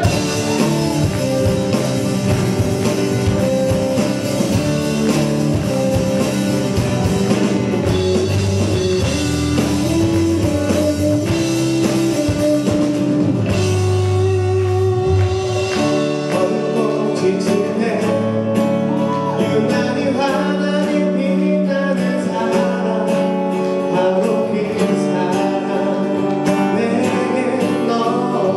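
A live rock band plays a song with singing over acoustic and electric guitars, bass, drums and keyboard. The deepest bass drops back about halfway through.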